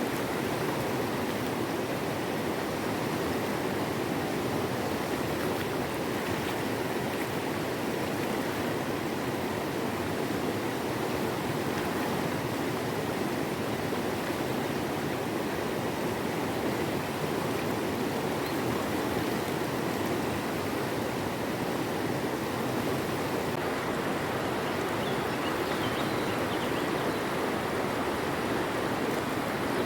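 River water flowing over stones, a steady rushing.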